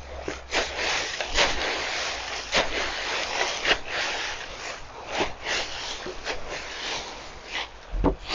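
Garden fork digging into and turning dry leaves and compost in a wooden bin: continuous crunching, rustling leaves broken by repeated scrapes and knocks of the tines. A low thump comes near the end.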